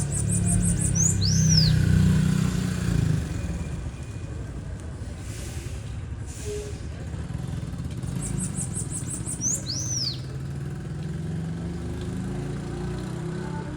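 Bananaquit singing twice, about eight seconds apart: each song is a rapid run of high ticking notes ending in a sharp, curving whistled note. A low rumble of a passing motor vehicle runs underneath, loudest in the first few seconds.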